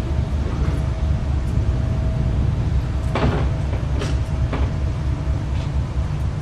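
Steady low rumble of the departing ferry New Koshiki's engines as it pulls away across the harbour, with a faint steady hum above it. A few short knocks come about three and four seconds in.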